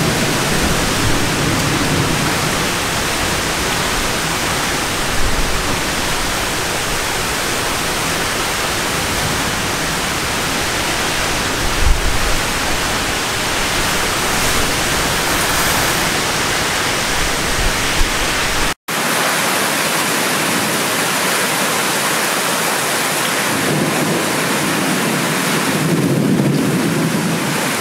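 Torrential rain pouring down, a dense, steady hiss. The sound cuts out for an instant about two-thirds of the way through, and a low rumble swells near the end.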